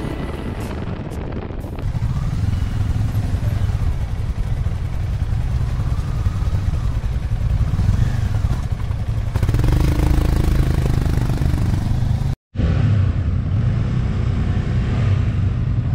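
Motorcycle engines running with a steady low engine note, the rider's Royal Enfield Himalayan single-cylinder among them. The sound drops out for a moment about twelve seconds in.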